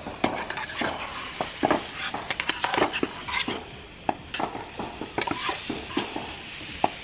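Metal utensils clinking and scraping irregularly against a pan on a camping gas stove, over a steady sizzle of food frying.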